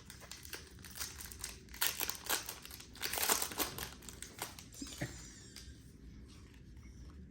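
Foil wrapper of a Pokémon card booster pack crinkling and rustling as it is handled and opened. The crinkling is thickest in the middle and dies down to faint rustles near the end.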